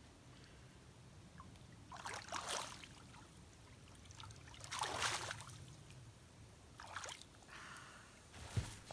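Lake water splashing and dripping in a few short, soft bursts as a swimmer climbs out of the water onto a rock shore, the loudest about five seconds in.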